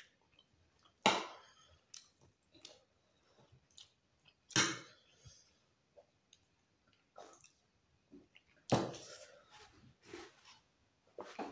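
Eating sounds: chewing and small clicks of a meal of chicken and rice eaten by hand, with three louder sharp tableware clatters, about a second in, midway, and near the end.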